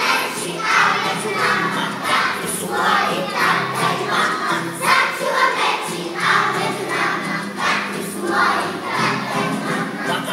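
A group of young children singing together in unison over a recorded backing track played through loudspeakers, with the syllables coming in a steady rhythm.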